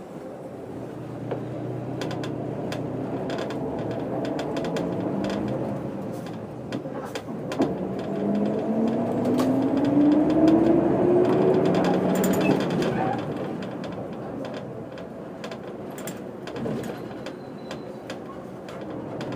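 Setra 315 UL bus's diesel engine, heard from inside the bus, accelerating with a manual gearbox. The engine note climbs in pitch and loudness to a peak about twelve seconds in, with a gear change partway through, then drops back as the bus eases off. Short rattles and clicks from the bodywork run throughout.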